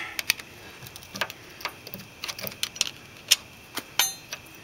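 Irregular small metal clicks and taps of a tool working the washer off a front wheel spindle, with one sharper click about three seconds in and a brief rattle just after.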